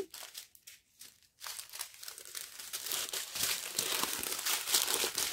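Thin plastic bags of round diamond-painting drills crinkling as the strip of bags is handled. A few faint crackles come first, then steady crinkling from about a second and a half in.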